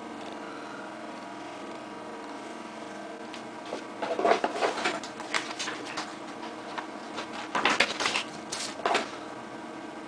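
Crinkling and rustling of plastic wrapping as a small packed item is unwrapped by hand, in two spells, about four seconds in and again near eight seconds. Under it runs a steady low hum.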